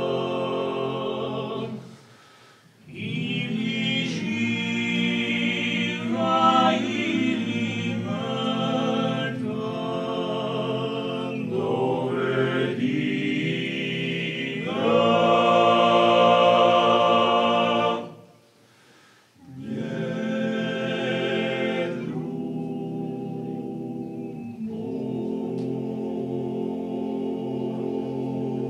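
Male vocal group of eight, a Croatian klapa, singing a cappella in close harmony. The singing breaks off briefly about two seconds in and again about eighteen seconds in, swells loudest just before the second break, and ends on a long held chord.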